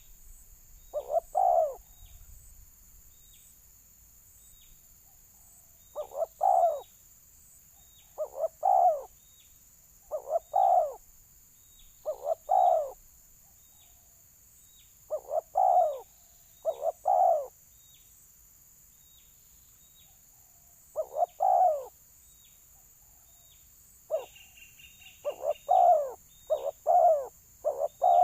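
Spotted doves (balam) cooing in repeated phrases of two or three low, rolling notes, a few seconds apart and coming faster near the end: a territorial fight call, answering a decoy dove.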